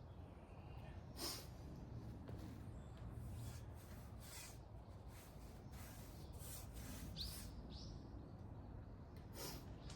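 Faint, brief rubbing or brushing strokes every few seconds over a low background rumble, with two quick bird chirps about seven seconds in.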